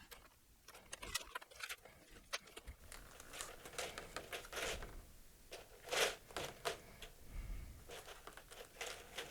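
Hands handling packaging and small parts: intermittent rustling, crinkling and light knocks, with one louder rustle about six seconds in.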